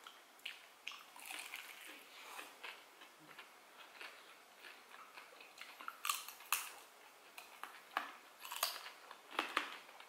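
Close-up eating of deep-fried battered Indonesian snacks (gorengan): crisp crunching bites and chewing full of small crackling clicks, with louder crunches about six and eight and a half seconds in.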